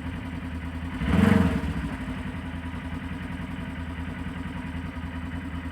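Engine of the machine pulling the tree over, running steadily at a low idle. About a second in there is a brief, louder sound of under a second.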